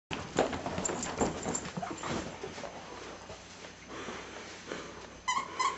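A Labrador puppy scuffles and knocks about while playing with a plush toy on carpet. Near the end, the toy's squeaker squeaks twice in quick succession.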